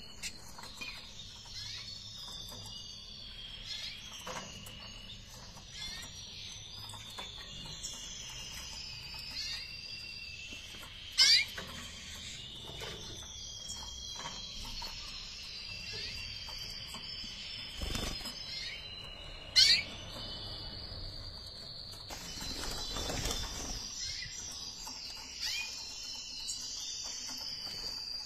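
Red mosaic canary hens chirping and twittering in their cages, a steady stream of high calls, with two sharp, louder calls about eleven and twenty seconds in.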